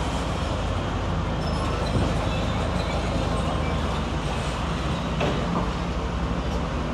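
Diesel engine of heavy earthmoving machinery running steadily, a low engine drone under a broad mechanical noise.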